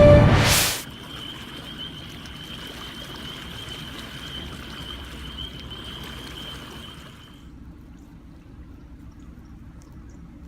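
Music stops abruptly right at the start; then steady rushing of flowing floodwater, with a thin steady high whine that stops about seven seconds in, after which the water sounds quieter.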